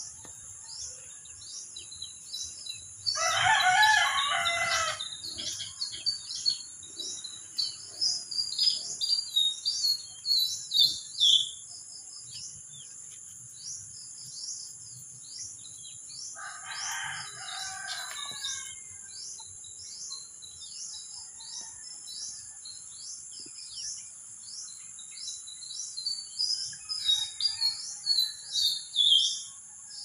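Small wild birds chirping rapidly: many short, high, downward-sliding notes, busiest in two spells. A rooster crows twice, about three seconds in and again about sixteen seconds in, over a steady high drone of insects.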